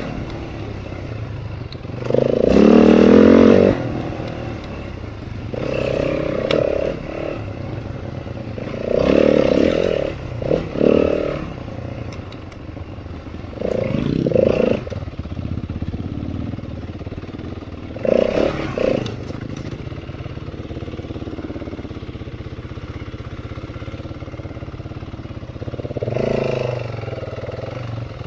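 Four-stroke single-cylinder dirt bike engine ridden slowly along a rough trail, blipped up in short bursts of throttle about half a dozen times between stretches of steady low running. The loudest burst comes a couple of seconds in.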